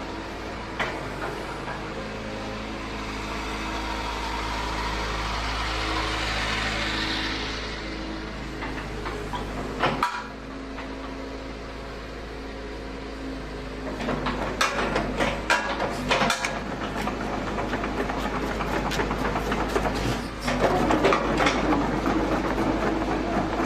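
Kobelco SK75UR-3ES hydraulic excavator's diesel engine running steadily, with a rising hiss as it works between about four and eight seconds and a single knock about ten seconds in. From about fourteen seconds on, many short metallic clanks and knocks sound over the engine, getting louder near the end.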